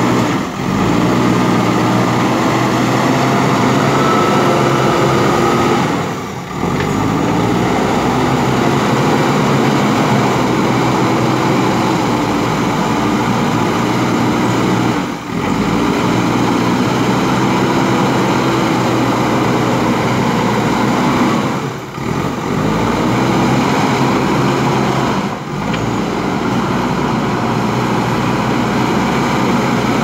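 JCB 3DX backhoe loader's diesel engine running hard as the front bucket pushes and levels soil, its pitch rising and falling with the load. It is broken by a few short dips in loudness.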